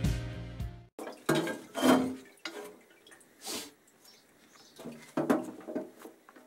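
Cast metal engine sump being lifted and turned in a parts-washer tub: scattered clunks and clinks of metal on the tub and its rack, with solvent dripping and a short splash about halfway through. Background music fades out in the first second.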